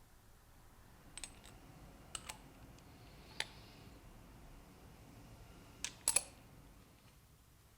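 Faint scattered clicks and taps of metal tools and parts being handled while bearings are pressed into a bicycle front hub shell with a bearing press: about half a dozen, the loudest pair about six seconds in.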